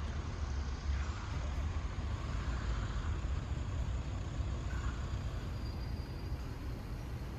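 Outdoor street ambience: a steady low rumble with faint passing sounds above it.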